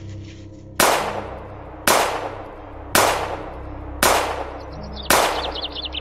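Five gunshots about a second apart, each sharp crack followed by a long ringing echo. Birds begin chirping near the end.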